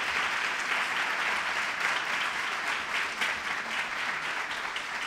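Audience applauding, a steady clatter of many hands clapping that slowly fades toward the end.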